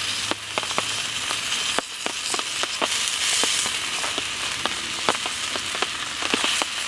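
Sliced dryad's saddle fungus frying in a pan over campfire embers: a steady sizzle with many irregular sharp pops and crackles.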